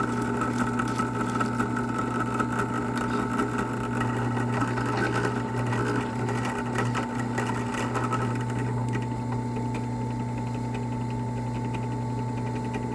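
Motor-driven roll crimper spinning steadily as it rolls the crimp closed on a .410 shotgun hull, giving a steady hum.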